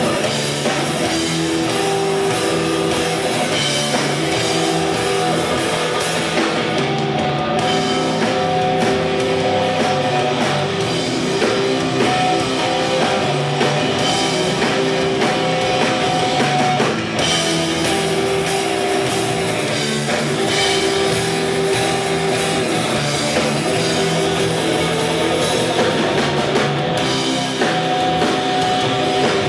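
Live rock band playing: electric guitars and bass over a drum kit, loud and steady.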